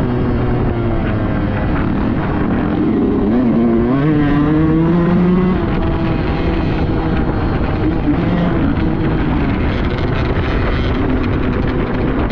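2005 Suzuki RM125 two-stroke single-cylinder dirt bike engine running under load on a trail ride, its pitch rising and falling with the throttle.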